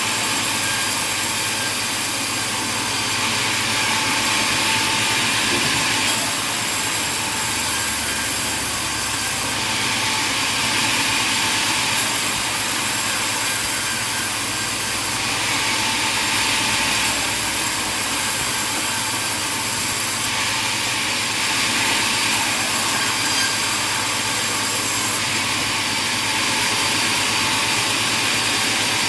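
Sawmill machinery running steadily as it saws wood. The sound shifts every few seconds.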